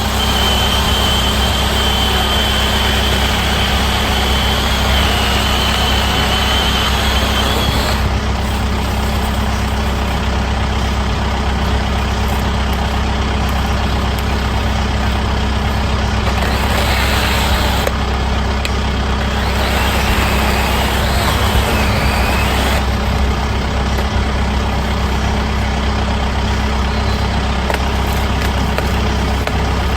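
Kubota M7060 tractor's diesel engine running steadily. A thin high whine sits over it for the first seven seconds or so.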